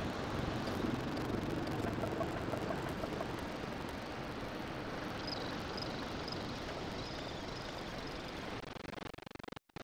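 Steady outdoor noise of wind and breaking surf, with a short run of faint high bird chirps in the second half. The sound drops out for an instant near the end.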